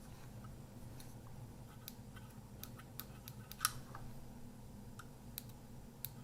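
Scattered small sharp clicks from an opened-up Kodak Ektar H35N half-frame camera being worked, one click louder about three and a half seconds in, over a low steady hum. The flash circuit is powered and trying to discharge, but the flash does not fire.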